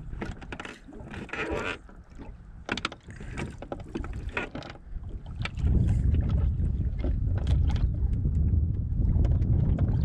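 Canoe paddle strokes: splashes and drips of water off the wooden paddle blade with short clicks. About five and a half seconds in, a steady low rumble of wind on the microphone takes over and grows louder.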